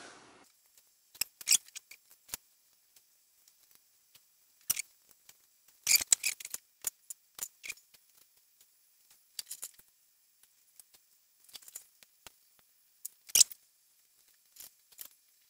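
Scattered small clicks and metallic taps, in irregular clusters with quiet between them, from hands and small tools working new wires onto the motor-stop contacts inside a Teletype Model 19 printer mechanism.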